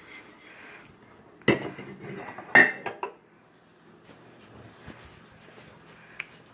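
Dishes and cutlery clattering as they are handled and set down, with two sharp knocks about a second and a half and two and a half seconds in, the second ringing briefly.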